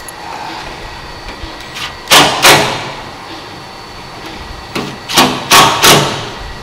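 Cordless power driver with a long screwdriver bit driving a screw into the truck's sheet metal in short trigger bursts: two quick bursts about two seconds in, then four more about five seconds in.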